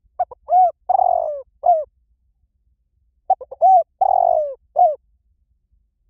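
Spotted dove cooing, two identical phrases about three seconds apart, each a couple of short notes, a longer rolling coo and a short closing note. This is the song played as a decoy call to draw spotted doves in.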